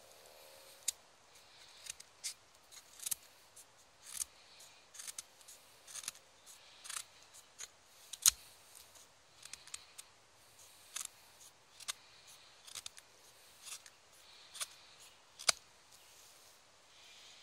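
Condor Bushlore fixed-blade knife with a carbon-steel blade shaving curls down a branch to make a feather stick: about twenty short, crisp slicing strokes at irregular intervals, the loudest a little past halfway.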